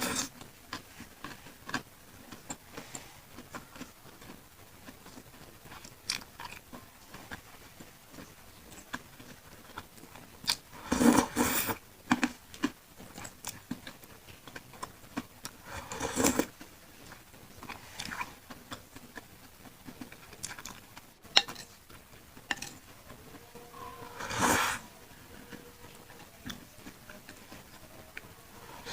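Close-miked eating of pentol meatballs in chili sauce: soft wet chewing and small mouth clicks, with three louder bursts of eating noise spread through.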